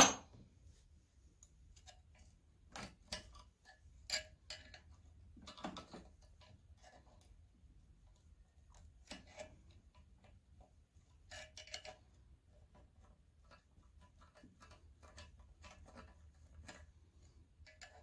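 Steel pick tool scraping and clicking against the cast-iron cylinder sleeve and block while digging out an old wet-sleeve O-ring, in short irregular bouts a few seconds apart.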